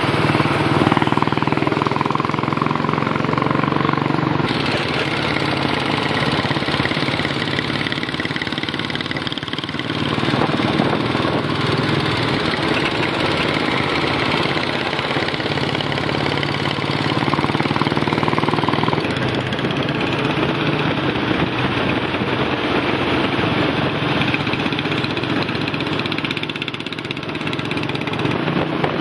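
Royal Enfield single-cylinder motorcycle engines running steadily while riding. The sound changes abruptly a few times.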